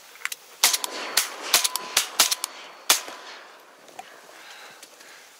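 Shotgun fire during a duck hunt: a rapid string of about five sharp, loud shots within two and a half seconds, starting under a second in.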